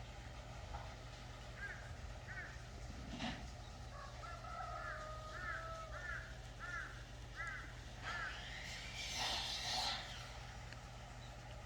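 A bird calling repeatedly: short arched calls about two-thirds of a second apart, then a louder, harsher call near the end, over a steady low background hum.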